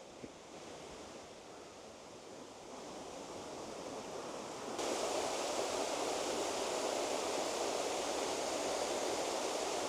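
Rushing water of the Moness Burn tumbling down its wooded gorge, faint at first, growing, then stepping suddenly louder about halfway through into a steady rush.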